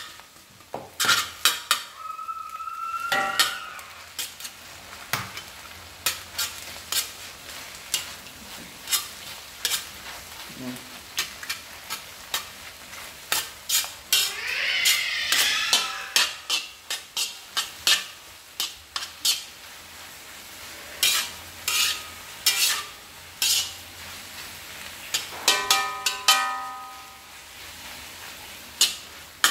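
Food being stir-fried in a pan over a steady low sizzle, with a spatula knocking and scraping against the pan in quick, irregular clacks. A couple of scrapes make the metal ring briefly, one early on and one near the end.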